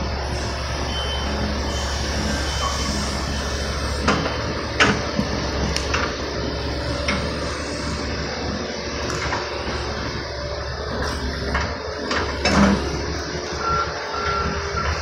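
Diesel construction machinery running steadily while breaking up a concrete sidewalk, with scattered sharp knocks and scrapes of concrete, and a couple of short reversing-alarm beeps near the end.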